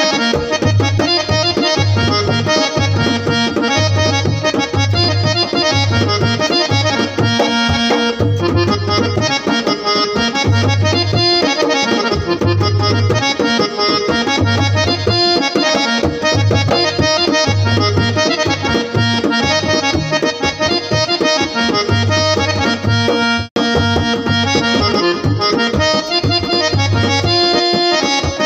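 Electronic keyboard playing a folk melody in an accordion-like reed voice, with a dholak beating a steady rhythm underneath. The music breaks off for an instant about 23 seconds in.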